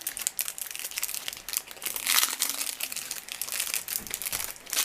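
Crinkling and rustling of packaging, with irregular small clicks, as small parts from a watch repair kit are handled.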